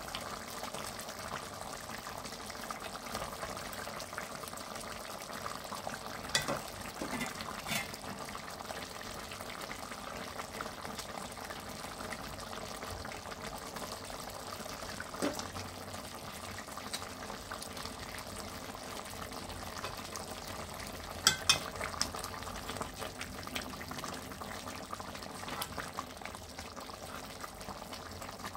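Mutton and tomatoes simmering in an aluminium pot, a steady bubbling. Metal tongs clink against the pot now and then as the tomato skins are picked off, loudest twice about three-quarters of the way through.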